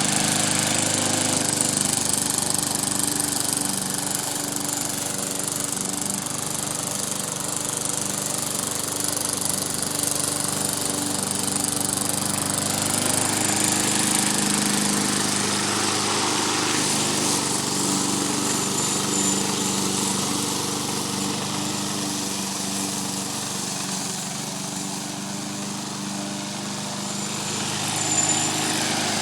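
Pull-start gas lawn mower engine running steadily as the mower is pushed along, its level swelling and easing a little.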